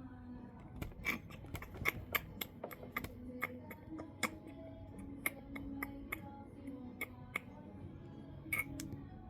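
Irregular sharp clicks, two or three a second, over faint background music.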